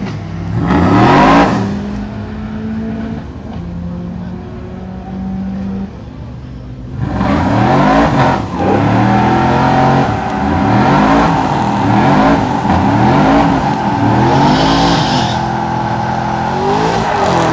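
Pickup truck engine revving hard, once near the start, then again and again from about seven seconds in, the pitch rising and falling roughly once a second as it spins its rear tyres in a smoky burnout.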